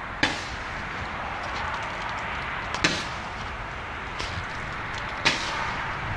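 Fireworks going off: three sharp bangs about two and a half seconds apart, over a steady hiss.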